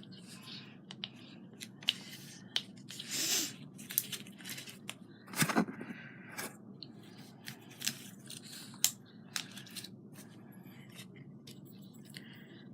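Scattered small clicks, taps and rustles of craft materials and tools being handled on a tabletop, with a short scraping rustle about three seconds in and a louder knock about five and a half seconds in.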